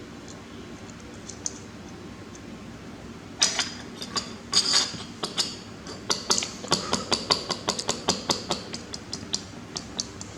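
Small hard parts being handled: a quick, irregular run of sharp clicks and clinks, starting about three and a half seconds in.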